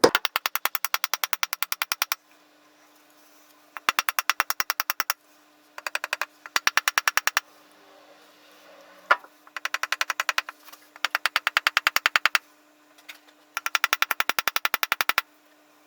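Hammer knocking the wooden wedge into the eye of an axe head to seat the handle, in runs of rapid, evenly spaced knocks about ten a second, with one lone louder knock midway.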